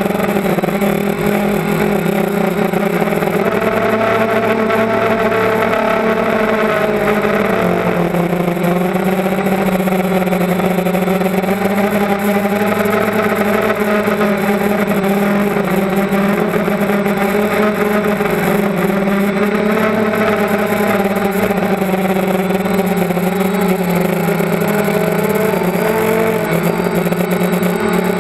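Motor vehicle engine running continuously close to the microphone, its pitch rising and falling gently every few seconds as the throttle changes, over a steady rush of noise.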